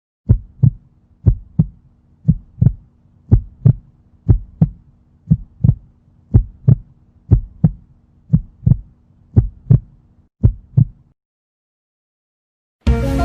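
Heartbeat sound effect: eleven double thumps, lub-dub, about one a second over a steady low hum, stopping about eleven seconds in.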